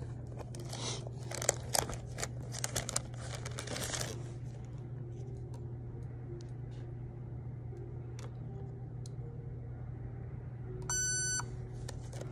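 Crinkling and clicking handling noise for the first few seconds over a steady low hum, then a single electronic beep about half a second long near the end, as from a checkout card terminal.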